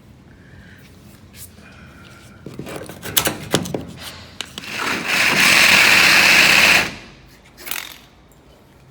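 A few knocks and scrapes on metal, then a power tool runs steadily for about two seconds and stops, followed by one more short knock.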